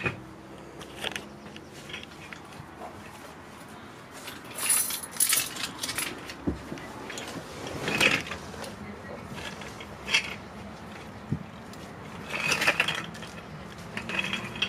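Scattered clicks, knocks and light metallic clatter, with a couple of dull thumps, coming in short bunches several times over a faint steady hum.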